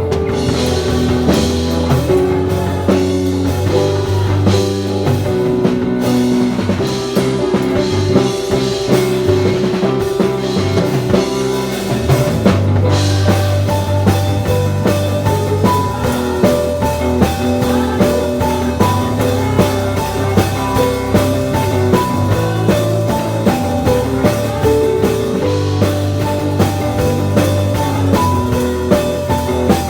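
Instrumental band music with drum kit, guitar and bass keeping a steady beat, without singing.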